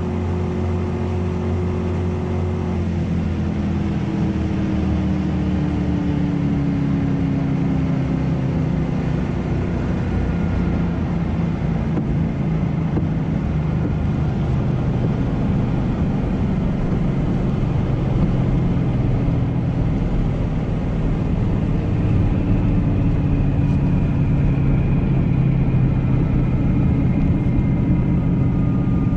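454 big-block Chevy V8 in a 1971 VW Beetle running hard at about 145 mph. About three seconds in the throttle comes off, and the engine note falls steadily as the car slows. A steady rush of wind and road noise runs under it.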